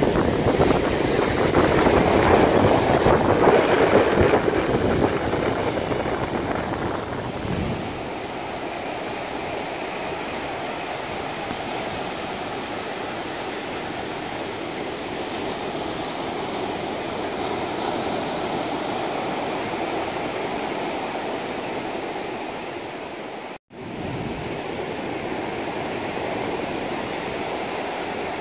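Ocean surf breaking and washing up a flat sandy beach in a steady rush. Wind rumbles on the microphone for the first several seconds. The sound cuts out for an instant about two-thirds of the way through.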